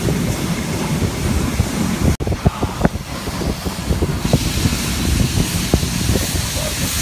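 Steam-hauled passenger train running, heard from an open coach: wheels rumbling and clicking on the rails with wind on the microphone. There is a short break about two seconds in, and from about four seconds a steady hiss joins.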